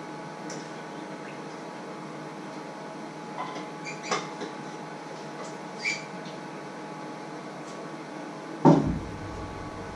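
Light clinks and taps of jars and containers being handled on a wooden kitchen counter over a steady room hum, with one heavy thump near the end.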